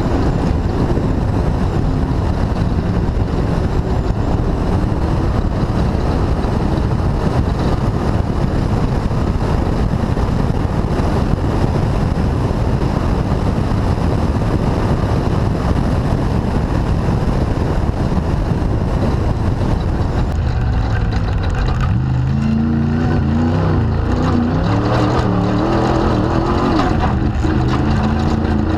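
Off-road race vehicle's engine running hard under heavy road and wind noise. From about three-quarters of the way in the engine note stands out more, rising and falling with the throttle.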